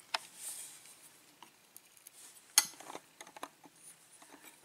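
Light, scattered clicks and taps of small metal lock parts being handled: the pins taken from a gutted Schlage cylinder. One sharper click comes about two and a half seconds in.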